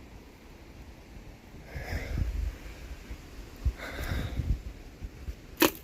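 A person breathing hard through the nose while hiking, with two heavier breaths about two and four seconds in, over a low rumble of handling and movement. A sharp click near the end.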